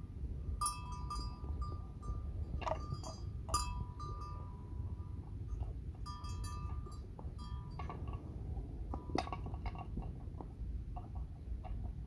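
A livestock bell clinking irregularly in short clusters of ringing, metallic strikes, over a low steady rumble.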